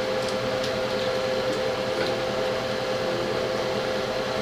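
A steady mechanical hum holding one constant mid-pitched tone, with a few faint light clicks.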